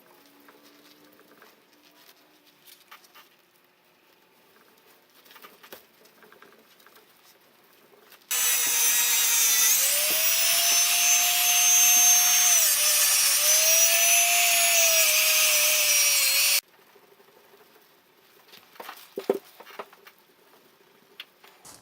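Electric angle grinder (a restored 1976 model) running for about eight seconds, starting and stopping abruptly, its whine rising in pitch, dipping briefly midway and rising again. Soft handling clicks come before and after.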